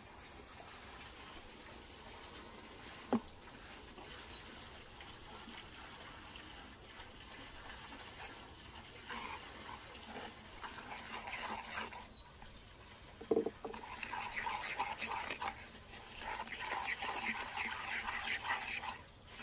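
Liquid poured into a wooden bowl of spices, then a thick red marinade stirred briskly with a wooden spoon against the wooden bowl, a fast run of wet strokes over the last few seconds. A single sharp tap about three seconds in.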